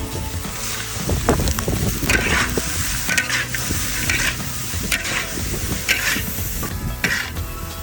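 Chicken gizzards sizzling as they fry in hot oil, with a brighter scrape about once a second as they are stirred in the pan.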